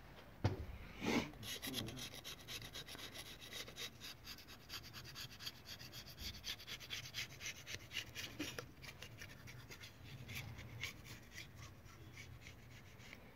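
Hand-tool work on the engine: a couple of knocks, then a fast run of short scratchy strokes for about seven seconds, thinning out toward the end.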